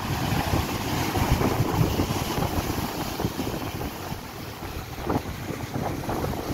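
Wind buffeting the microphone over the rush of rough storm-surge waves breaking and washing up a shingle beach.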